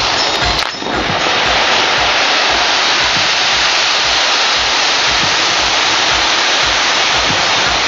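Cold pyro spark fountains spraying, giving a loud, steady hiss that dips briefly about a second in.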